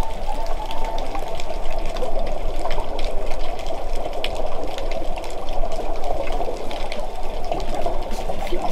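Muffled underwater noise picked up by a camera under water: a steady dense rushing with fine crackling ticks throughout.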